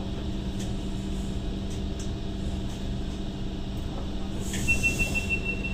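Interior running hum and rumble of an MTR Light Rail Phase I car as it draws up and stops at a platform. About four and a half seconds in there is a short hiss of air, then a steady high beep starts, the door signal as the doors are about to open.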